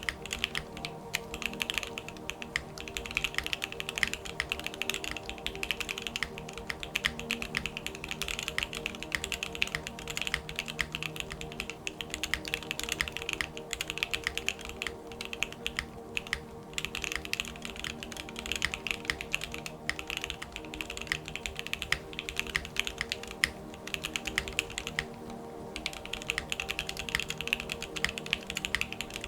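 Fast, continuous typing on a Geonworks F1 mechanical keyboard with JWK Alpaca linear switches, keys clacking in quick runs with brief pauses about halfway through and again near the end.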